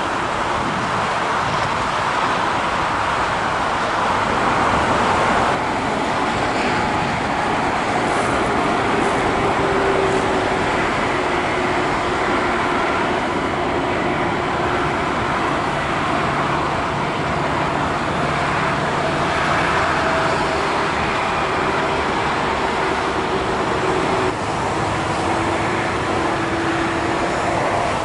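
Steady engine noise of an aircraft tug towing an Airbus A340-600 on the apron, mixed with general airport engine noise. The sound changes abruptly about five seconds in and again near the end.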